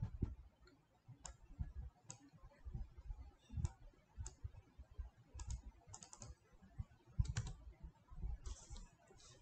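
Irregular clicks of a computer mouse and keyboard at a desk, about one or two a second, with low dull thumps from handling on the desk.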